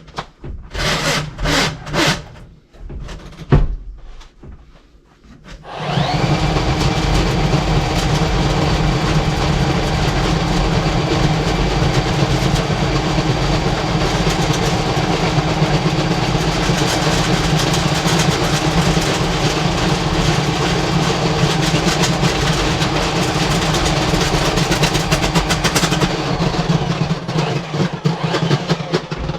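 Electric drain snake motor starting up about six seconds in and then running steadily with a constant hum, after a few separate knocks and clanks. It stops near the end.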